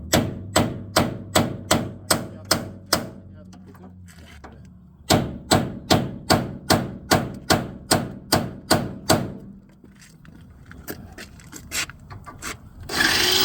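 Hammer blows knocking the heads off rivets in a bus's body panel, about two or three a second, in two runs with a pause between, then a few lighter taps. A power drill starts up near the end to drill out the rivets.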